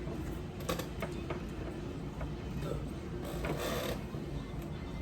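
Close-up eating sounds from a seafood boil: mouth smacking and chewing with scattered sharp clicks in the first second and a short crackling rustle about three and a half seconds in.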